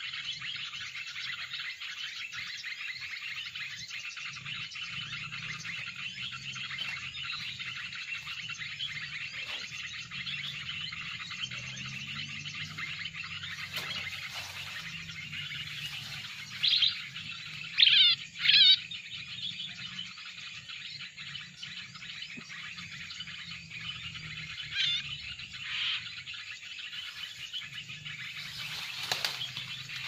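Kutilang emas lure call played from an mp3 recording: dense, continuous bird chirping. About 17 to 19 seconds in, three loud, close bird calls with downward-sliding notes stand out.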